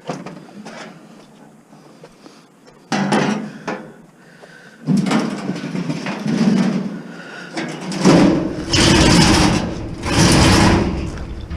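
Knocks, scraping and rattling of metal and plastic appliance parts being pulled and pried apart by hand while a washing machine is stripped for scrap, with the busiest, loudest clattering near the end.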